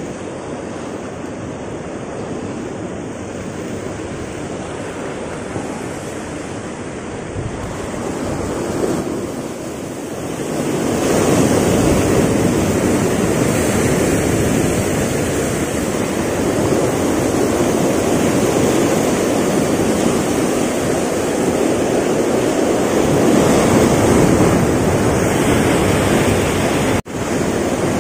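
Sea surf breaking and washing around the rocks of a rocky shore, with wind buffeting the microphone. The surf grows louder about ten seconds in.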